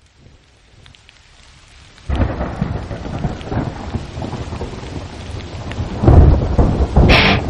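Thunderstorm with rain hissing faintly and building. A thunderclap breaks in about two seconds in and rumbles on, and a second loud peal comes near the end. Just before the end an electric guitar comes in as the song starts.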